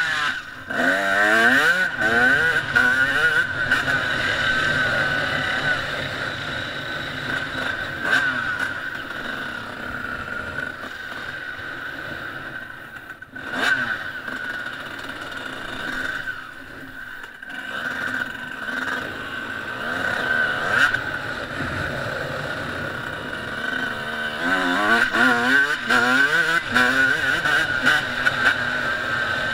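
Dirt bike engine revving up and down under hard riding, its pitch climbing in quick repeated sweeps near the start and again about 25 seconds in. The throttle eases off briefly around 13 and 17 seconds.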